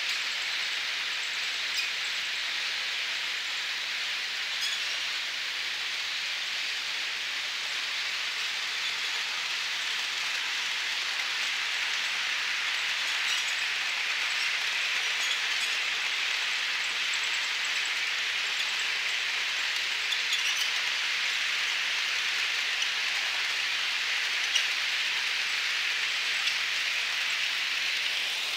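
HO scale model passenger train running on its track: a steady high whirring hiss from the locomotive's motor and the cars' wheels rolling on the rails, with a few faint clicks.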